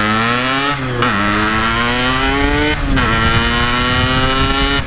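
Yamaha RX-King two-stroke single-cylinder motorcycle engine accelerating through the gears: the revs climb, drop at an upshift about a second in, climb again, drop at a second upshift near three seconds, then pull up steadily.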